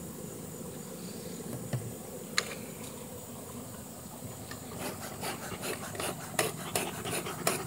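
A large swarm of honeybees buzzing steadily around a hive box, a low even hum, with a thin steady high insect trill above it. From about five seconds in, rapid rustling and clicking handling noise joins it.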